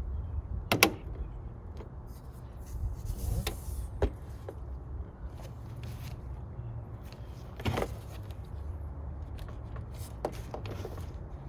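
Sharp plastic clicks and knocks with some rustling as wiring connectors are worked loose behind a removed car door panel, four distinct clicks, the loudest about a second in, over a steady low rumble.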